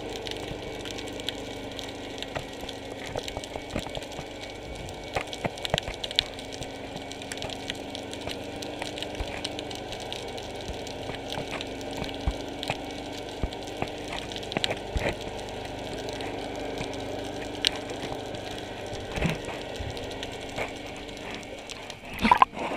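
Underwater ambience: a steady low hum that comes and goes, with many scattered sharp clicks and crackles.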